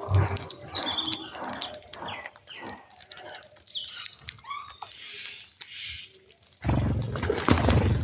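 House sparrows feeding on seed on concrete: short chirps and many scattered ticks of pecking. Near the end a loud low rumble sets in.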